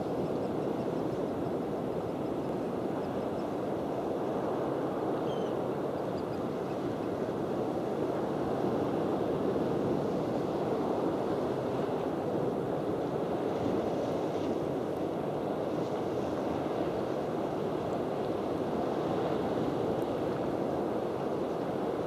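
Sea surf breaking against the cliffs and rocks, mixed with wind: a steady rushing noise with no distinct events.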